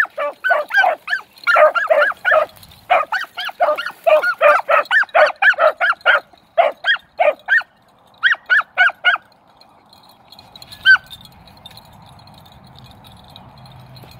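Beagles giving chop-mouth voice on a rabbit's scent trail: a fast run of short, repeated barks that stops about nine seconds in, followed by one single bark a couple of seconds later.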